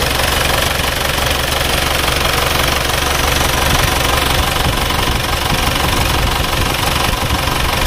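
Isuzu Panther diesel engine idling steadily with a fast, even clatter, running smoothly after a rebuild on reused cylinder liners.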